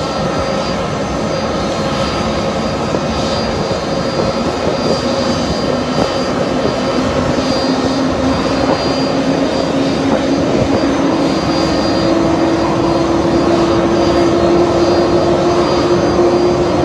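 Aircraft turbine engine running steadily: a dense roar with a high whine over it, and a lower tone that slowly rises in pitch as it grows a little louder.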